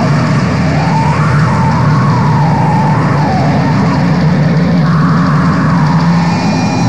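Raw black metal: dense, distorted guitars and drums playing continuously and loud, with a wavering melodic line that rises and falls above them.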